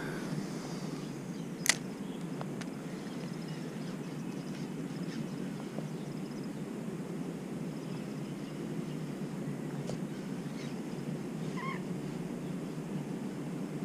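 A Shimano Stella spinning reel's bail snaps shut with one sharp click after a cast, about two seconds in, then a steady low noise runs under the retrieve of the spoon. A short bird chirp comes near the end.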